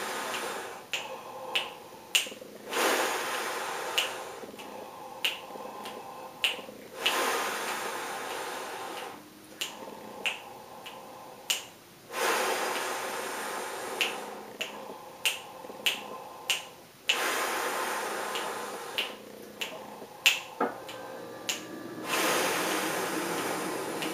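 Fingers snapping a steady beat, sharp snaps roughly every half second to two-thirds of a second, under long audible breaths in and out through a wide-open mouth that each last several beats: a counted inhale–exhale breathing exercise for wind playing.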